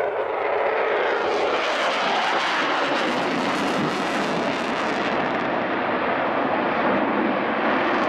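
Eurofighter Typhoon's twin EJ200 turbofans running in afterburner: loud, steady jet noise. About five seconds in, its hissing top end drops away as the jet pulls away.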